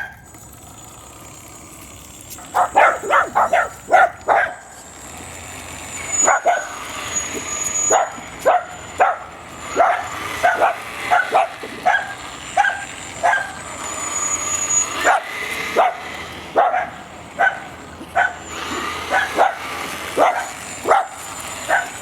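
A dog barking over and over at an RC truck, a quick run of barks a couple of seconds in, then roughly one bark a second. Under the barks runs the thin high whine of the RC truck's electric motor, wavering in pitch.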